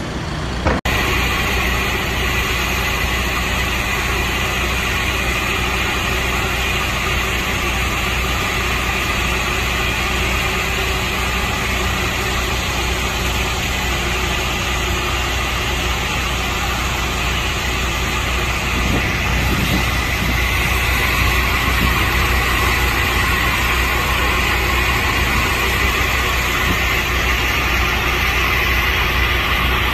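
Vehicle engine idling steadily: a constant low hum under an even wash of noise. It starts abruptly just under a second in.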